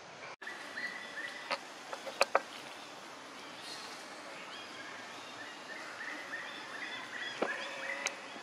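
Outdoor forest ambience: many short, high chirping calls over a steady hiss, broken by a few sharp clicks or snaps, the loudest a pair about two seconds in.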